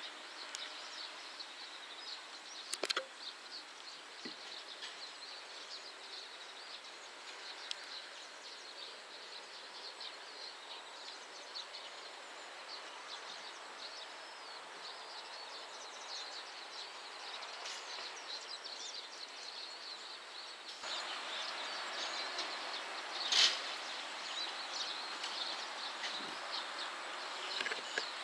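Faint outdoor ambience: a steady hiss with fine, quick high ticking, broken by two sharp clicks, growing a little louder about three-quarters of the way through. No train engine or horn stands out.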